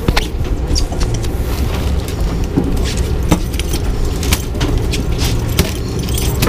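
A bluefish flopping on the wet boat deck, its body slapping and knocking irregularly, over a steady low rumble.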